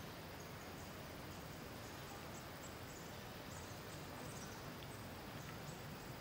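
Quiet outdoor ambience: a steady hiss with faint, irregular high-pitched chirps and a few soft ticks.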